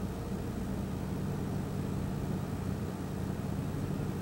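A vehicle engine idling: a steady low hum.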